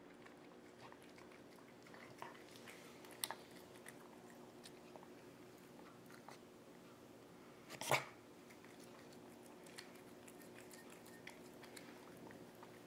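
A cat chewing and crunching food from a bowl, faint, with scattered small clicks and one sharper click about eight seconds in.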